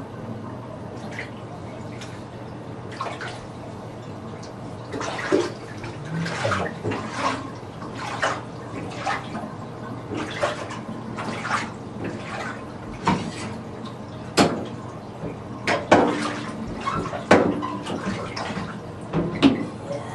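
Water splashing in a bathtub as a baby is washed: irregular splashes and sloshes, some sharper than others.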